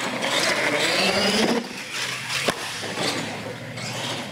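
Radio-controlled monster truck's motor and drivetrain whining, the pitch rising and falling with the throttle as it drives on a concrete floor. It is loud for the first second and a half, then quieter, with one sharp knock about two and a half seconds in.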